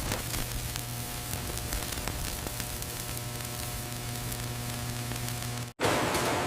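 Steady electrical-sounding hum under a constant hiss, as of running factory machinery. About three-quarters of the way through it cuts off abruptly and a louder, rougher noise takes over.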